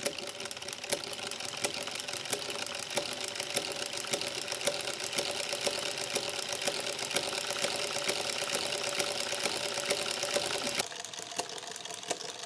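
Juki DDL-900B industrial single-needle lockstitch sewing machine running steadily with a ruffler foot pleating the fabric: a rapid, even clatter of stitches. It stops about two seconds before the end.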